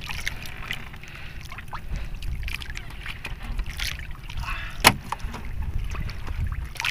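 Low rumble of wind and water around a small outrigger fishing boat, with small handling clicks and one sharp knock about five seconds in.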